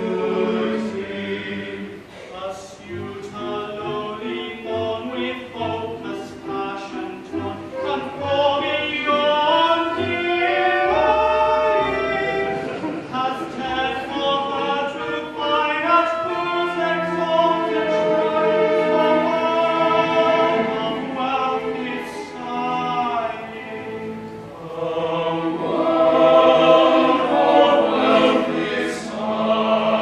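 A male chorus singing an operetta number in several parts, the voices rising in strength near the end.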